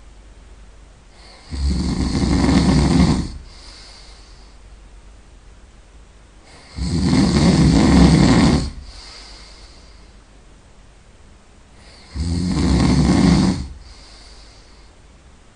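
A person snoring really loud: three long, rasping snores about five seconds apart, with softer breaths between them.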